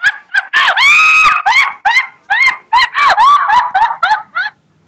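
Shrill, very high-pitched laughter in a quick run of short cackles, with one longer held high note about a second in, stopping shortly before the end.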